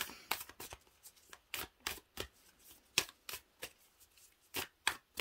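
Oracle card deck being shuffled by hand: a string of quick, irregular snaps of cards against each other.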